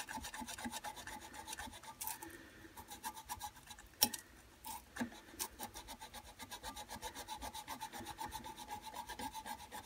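Faint, quick rasping of sandpaper rubbed back and forth between an old Suffolk Punch mower engine's ignition contact-breaker points, about four strokes a second, to clean off the dirt that stops them sparking. The rubbing pauses briefly in the middle, with a few light clicks.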